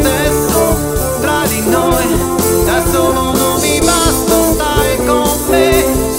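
Instrumental passage of a pop-rock song: electric guitar playing a lead line with bent notes over a full band with a drum kit.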